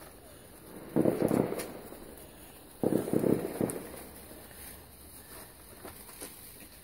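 Fireworks going off: two short clusters of rapid bangs about two seconds apart, each dying away quickly.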